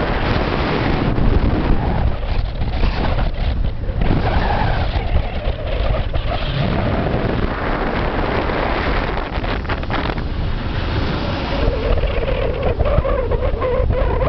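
Wind buffeting the microphone over a motorcycle's running engine while riding on a road. The engine note shifts in pitch partway through and again near the end.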